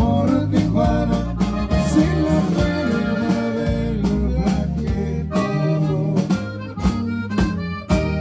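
Live norteño band playing: a button accordion carries the melody over a drum kit's steady beat and a guitar.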